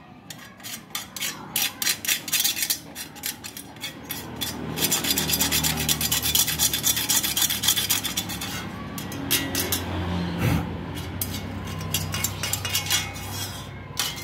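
Old gasket residue being scraped and rubbed off the metal flange of a Toyota Starlet's exhaust manifold. Quick rasping strokes at first, then a few seconds of fast, continuous scrubbing near the middle, then irregular strokes again.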